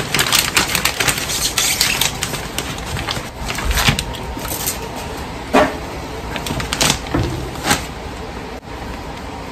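Plastic vacuum-sealer bag rustling and crinkling as raw sausages are slid into it. Later come three sharp knocks about a second apart as the bag and foam tray are handled on a wooden cutting board.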